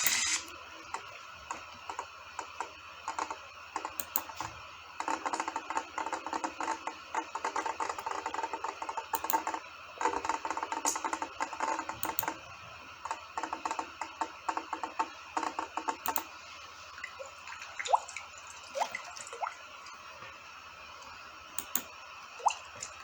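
Rain drops ticking and dripping irregularly onto a hard surface, in dense patches and then sparser, over a faint steady hiss.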